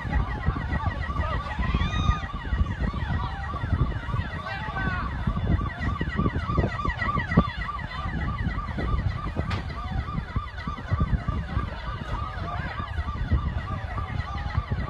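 Emergency vehicle siren in a rapid yelp, rising and falling about two to three times a second, over a steady low rumble.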